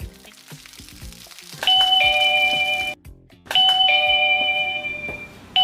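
Wireless doorbell chime playing a two-note ding-dong, a higher note then a lower one. It sounds about a second and a half in and is cut off short, then rings again a moment later and fades out, with a third ding starting at the very end.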